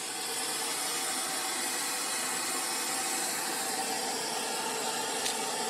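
Steady hiss from a mie ayam cart's stainless-steel noodle pot at the boil and the stove heating it, with a faint steady hum underneath; it grows a little louder just after the start.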